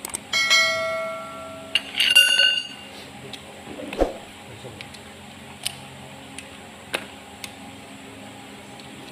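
Subscribe-button animation sound effect: a ringing chime, then a second bell-like ding about two seconds in. A soft thump near four seconds and a few faint metallic clicks follow.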